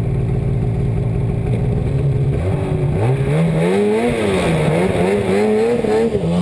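Snowmobile engine idling steadily. About two and a half seconds in, the throttle opens and the revs rise and fall repeatedly under load as a sled pulls the stuck sled out on a rope.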